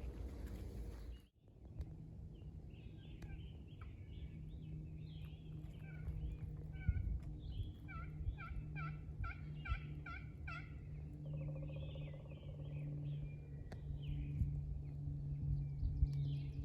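A run of about eight evenly spaced turkey yelps, roughly three a second, about halfway through, among scattered songbird chirps. A low steady hum lies underneath.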